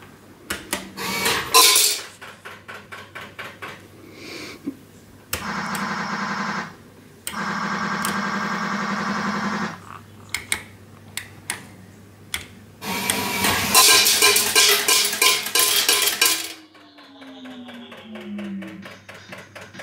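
Elam Crazy Deal fruit machine in play: button clicks and ticking, then two long electronic tones. About thirteen seconds in, a loud clatter of coins runs for a few seconds, coins paying out into the metal tray, followed by falling electronic tones.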